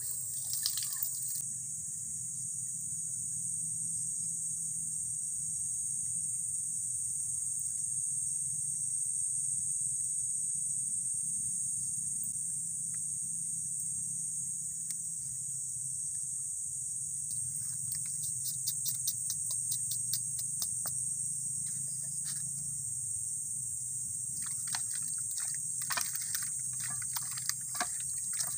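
Steady high-pitched drone of insects with a low steady hum underneath. Water sloshes briefly in a steel bowl at the start, and small scattered clicks and taps come in toward the end.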